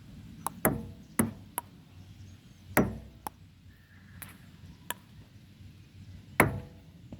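Table tennis being played: the ball clicking sharply off paddles and the table in a quick back-and-forth, several knocks about half a second apart, with a pause of about a second and a half before a last loud hit.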